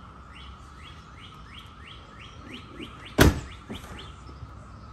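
A bird calling over and over, a short falling chirp about three times a second, over a faint steady high tone. About three seconds in, a single sharp knock cuts in, the loudest sound.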